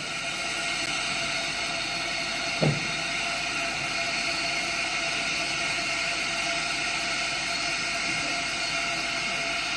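Northern Pacific 924, a 0-6-0 steam switcher, standing and hissing steadily as steam escapes around its cylinders and front end. A single short knock sounds about two and a half seconds in.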